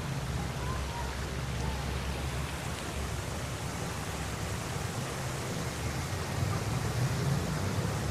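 City street ambience: a steady hiss with a low rumble of traffic, swelling slightly near the end.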